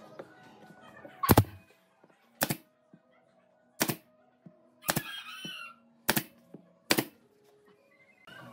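Pneumatic nailer firing six times, about a second apart, each a sharp crack as it drives a nail into wooden trim. A short, higher-pitched sound follows the fourth shot.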